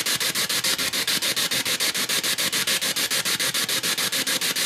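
Spirit box sweeping rapidly through radio frequencies: a loud rush of static chopped into quick, regular pulses at about ten a second.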